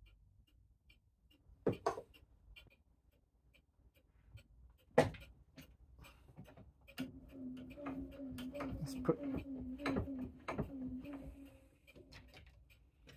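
Metal clunks and knocks as a mainspring winder is handled and set into a bench vise, the loudest clunk about five seconds in, over a clock ticking faintly. In the second half a low wavering hum runs under further clicks.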